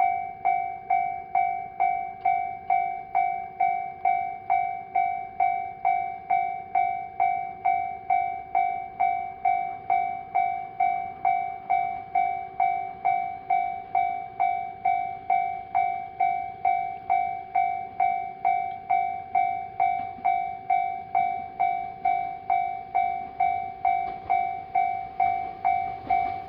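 Level-crossing warning bell ringing, an even ding-ding of a clear, high tone a little under two strikes a second, each strike dying away before the next. Near the end the rising noise of an approaching train builds beneath it.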